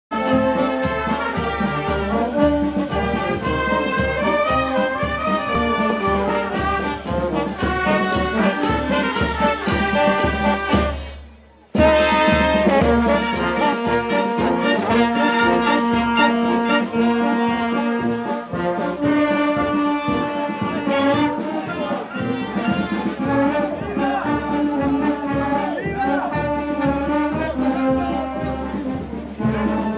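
Marching brass band playing over a steady drum beat. The music fades out about eleven seconds in and starts again abruptly a second later.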